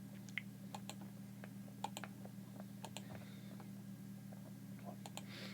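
Faint, irregular clicks of keys being pressed while a sum is worked out, over a steady low hum.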